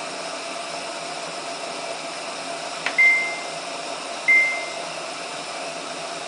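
Samsung WF8804RPA washing machine control panel beeping twice as buttons are pressed in its service mode: a click, then a short high beep about three seconds in, and another beep about a second later, over a steady hum.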